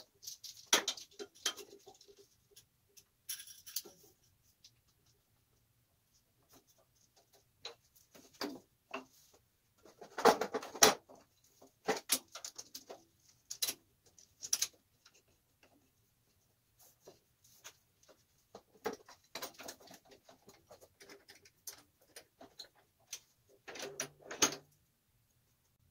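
Wooden blocks and a metal bar clamp being handled and set in place on a drill press table to hold a workpiece: scattered clicks, taps and wooden knocks with quiet gaps between them. The loudest cluster of knocks comes about ten seconds in.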